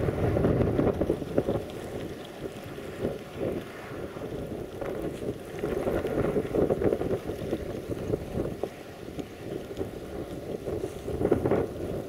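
Blizzard wind buffeting the microphone: a rough, uneven rumble with no steady tone, rising and falling in gusts.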